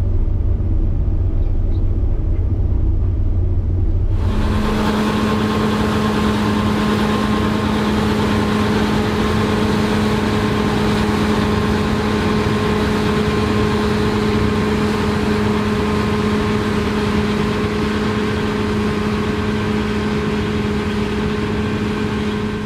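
A low rumble for about four seconds. It then switches suddenly to a Claas Lexion 8900 combine harvester running as it harvests rapeseed: a dense, steady machine rush with a constant hum held through it. The sound cuts off abruptly at the end.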